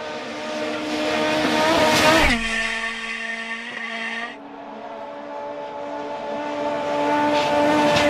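World Rally Car's turbocharged four-cylinder engine at full throttle, its note climbing as the car approaches and dropping in pitch as it passes about two seconds in. A second pass builds up and goes by right at the end.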